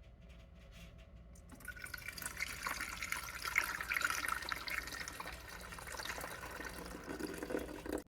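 Water poured into a drip coffee maker's water reservoir, starting about a second and a half in and stopping abruptly near the end.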